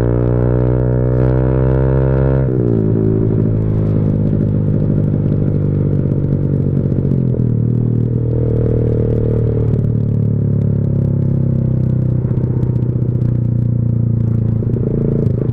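Motorcycle engine through a Leo Vince GP Corsa Shorty carbon-fibre exhaust, very loud: its pitch climbs for about two and a half seconds, then falls away and the engine runs on at a steady lower pitch with a deep rumble.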